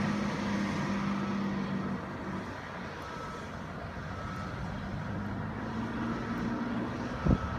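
Vintage 1970s Bombardier tracked sidewalk plow's engine running, a steady hum that drops away about two seconds in as the machine pulls off into the distance. A short thump near the end.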